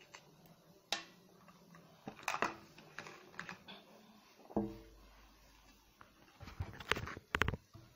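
Spoon clicking and scraping against a plastic cup as slime is stirred to mix in the activator: irregular light taps, busier near the end, with a brief pitched sound near the middle.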